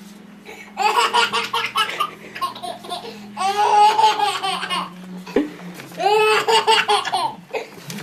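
Toddler giggling and belly-laughing in three high-pitched bouts: around one second in, in the middle and near the end.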